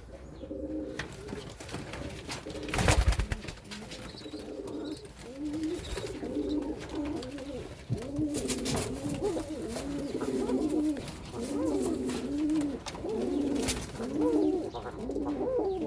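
Serbian highflyer pigeons cooing over and over, several low, rising-and-falling coos overlapping. A loud thump about three seconds in and a few sharp clicks later.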